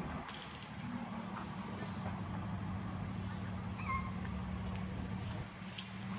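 A steady low mechanical hum, like a motor or engine running, with a faint thin high whistle on and off and a short chirp about four seconds in.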